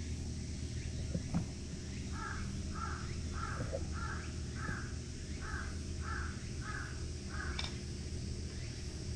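A bird calling nine times in an even run, a little under two calls a second, over a low steady hum.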